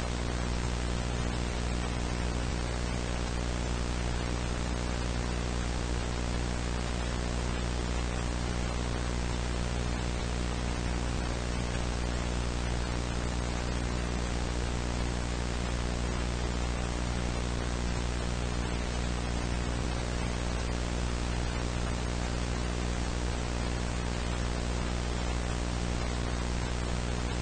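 Steady static hiss with a low buzzing hum beneath it, unchanging, like the dead air of a television or emergency broadcast signal.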